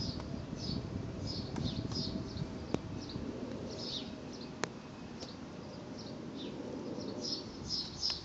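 Small birds chirping in repeated short, high calls over a steady low rumble, with two sharp clicks about three and four and a half seconds in.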